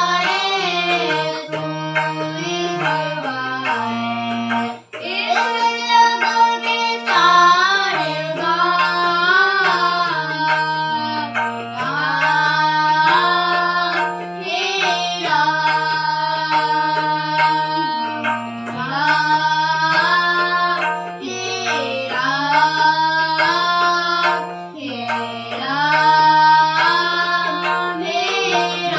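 Two children, a girl and a boy, singing a Hindu devotional bhajan together to a hand-pumped harmonium playing held chords that step from note to note, over a tabla rhythm played from a tabla app.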